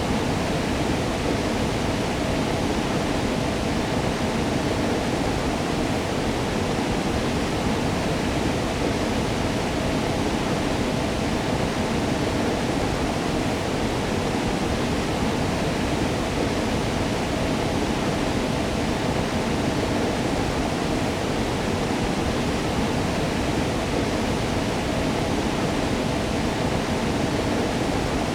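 Waterfall: a steady, unbroken rush of falling water, strongest in the low-middle range.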